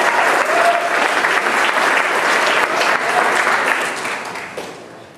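Audience applauding, dying away over the last second or so.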